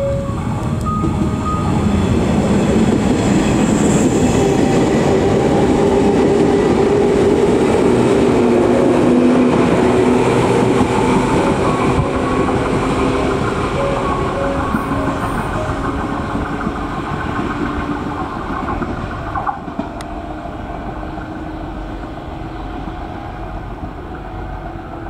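JR 381-series train set running through the station without stopping, its wheels running on the track. It grows loud as the cars pass, then fades as the train moves away. The last notes of the station's approach chime sound in the first two seconds.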